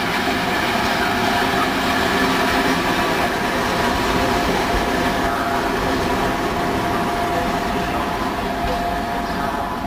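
ČD class 754 diesel-electric locomotive running light past at close range, its V12 diesel engine giving a steady pitched drone. It is loudest as the cab end passes about two seconds in, then eases off slightly as the locomotive moves away.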